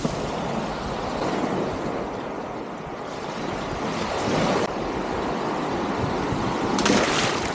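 Wind rushing over the microphone, with surf washing on the shore. A sharp knock comes right at the start, and a louder gust of wind near the end.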